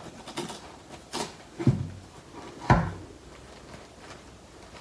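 Gloved hands peeling open a white protective wrapping sealed with a sticker, with short crinkling and rustling strokes and two dull knocks about a second apart, near the two-second mark, the loudest sounds.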